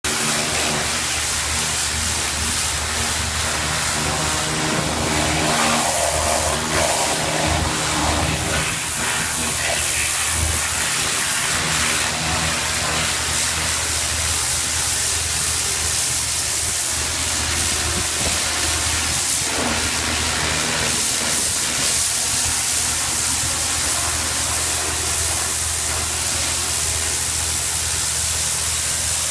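Pressure washer cleaning concrete paving: the steady hiss of the high-pressure jet striking the ground, over the even drone of the machine's motor and pump.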